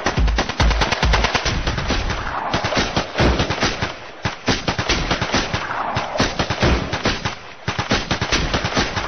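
Rapid machine-gun fire sound effect, dense strings of shots, laid over an electronic dance track in a highlight-reel soundtrack.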